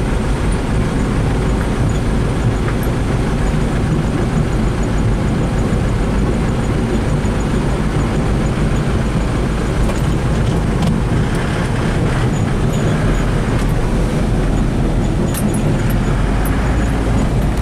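Steady, loud rumble of a stone crushing and screening plant running, with its conveyors and screens going continuously. A few faint rattles come near the end, as a wheel loader works a gravel pile.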